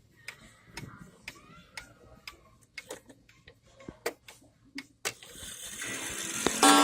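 Wall clock ticking about twice a second. About five seconds in the chime train starts to whir, and near the end its coil gong is struck once and rings on: the start of the half-hour chime.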